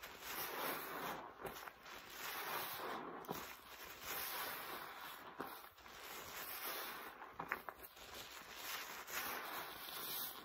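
A foam-laden sponge squeezed over and over in rubber-gloved hands in rinse water: wet squelching and crackling suds that swell with each squeeze, about every one and a half to two seconds, with a few sharp little pops.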